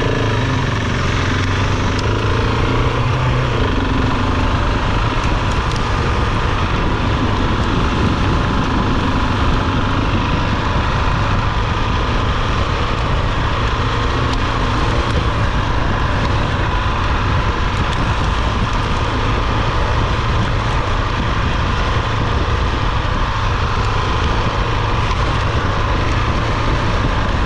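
Adventure motorcycle's engine running steadily while riding a dirt track, under a constant noisy rush.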